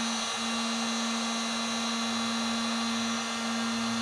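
Electric heat gun running steadily, a constant motor hum over a rush of blown air, as it shrinks heat-shrink tubing over a soldered wire splice.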